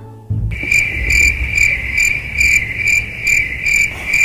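Insect chirping: a steady high trill that pulses about two and a half times a second, starting suddenly about half a second in, over a low rumble.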